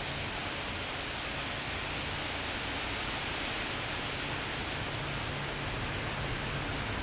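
Thunderstorm outside: an even, steady hiss of wind and rain, strongest in the higher range, with no single gust or thunderclap standing out.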